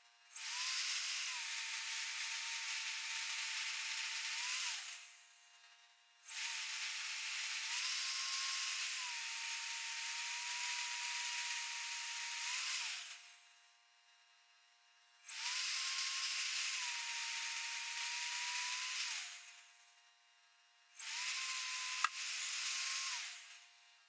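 Magnetic drill press with an annular cutter boring through thick steel plate, running in four separate bursts of several seconds each with short pauses between. The motor's whine dips slightly under load and rises just as each burst ends; a single sharp click comes near the end.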